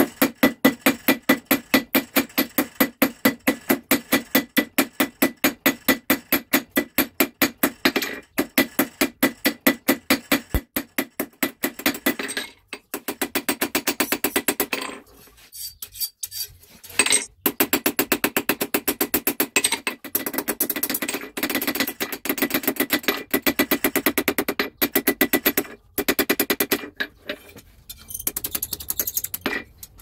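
Hand hammer striking a red-hot steel rod on an anvil: a steady run of ringing blows, about three a second. The blows break off for a few seconds about halfway and pause again briefly near the end.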